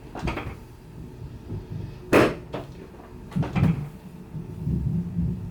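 Chiropractic knee adjustment: a series of short, sharp clacks and pops, the loudest a little over two seconds in.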